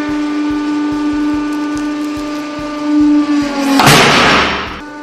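Hydraulic press running with a steady pump hum that dips slightly in pitch as the ram loads up on three thread spools; about four seconds in, a loud crunching and cracking burst lasting about a second as the spools are crushed.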